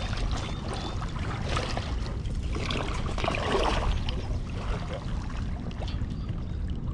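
Steady rushing of a fast-flowing river, a continuous noise with no distinct strokes or rhythm.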